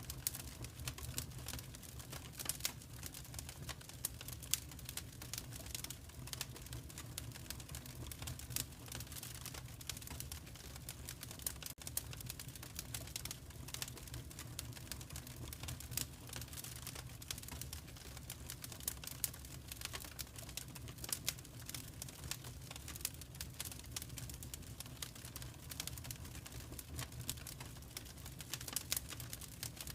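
Wood fire crackling in a fireplace: a dense, irregular run of small snaps and pops over a steady low rumble of the flames.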